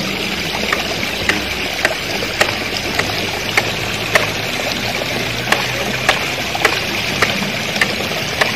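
Steady rush of flowing water, with a short sharp tick repeating about every 0.6 s.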